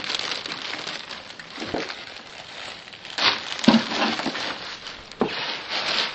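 Crinkling and rustling with a few soft knocks, as found objects are unwrapped and handled.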